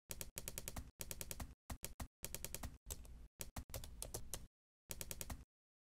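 Keyboard typing clicks: rapid key presses in short runs, with brief pauses between them, stopping about half a second before the end.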